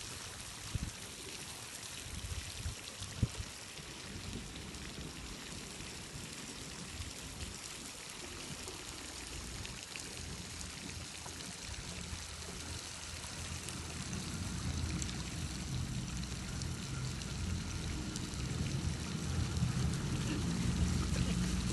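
Water from a lake fountain pouring and splashing steadily onto the water's surface. A low rumble builds up over the last several seconds.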